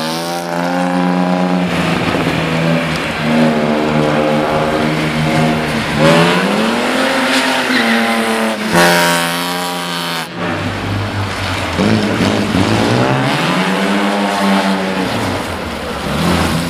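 Mercedes-Benz W123 saloon's engine revving as it is driven hard through tight turns. The engine note climbs and falls several times, with sudden drops as the throttle is lifted or the gear changes.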